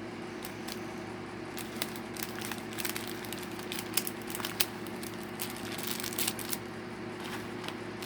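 Plastic packaging crinkling and crackling in short irregular bursts as it is handled and pulled at, a struggle to get it open, over a steady low background hum.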